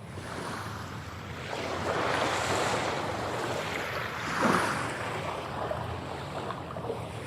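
Ocean surf: waves rushing and breaking on a beach, fading in at first, swelling in surges, with the loudest wash about four and a half seconds in.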